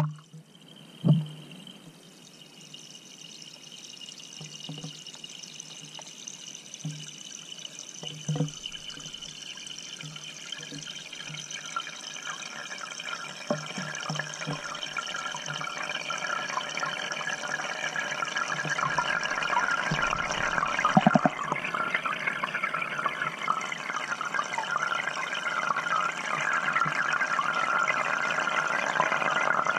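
Aquarium water rushing and pouring, heard through the microphone of a GoPro Hero5 Black held underwater in the tank, growing steadily louder, with a few short dull knocks.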